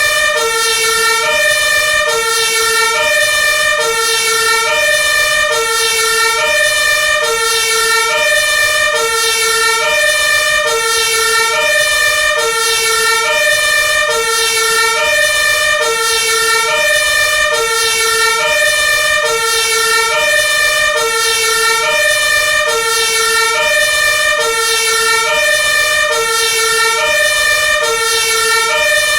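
Two-tone hi-lo siren of an Iveco Magirus Eurocargo 160E30 aerial ladder fire truck, loud and steady, alternating between a lower and a higher tone about every half second, with a steady high tone beneath.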